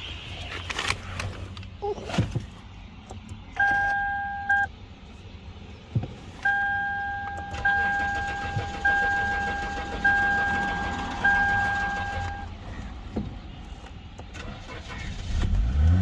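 A Lexus IS 300's dashboard warning chime beeps: once, then five times in a row, about one beep a second, with a few sharp clicks early on. Near the end the engine cranks over as it is started after its near-empty tank has been refilled.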